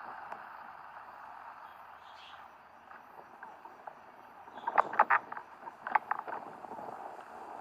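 Steady rain falling. About five seconds in comes a quick cluster of sharp knocks and taps, louder than the rain.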